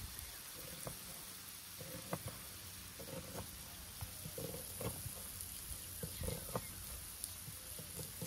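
Salo (pork fat) frying in a pan: a steady low sizzle with scattered small pops and crackles.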